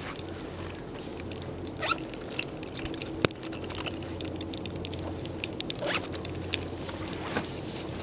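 A zip being pulled, in two rising strokes about two seconds in and again around six seconds, amid rustling and small handling clicks, with one sharp click just after three seconds.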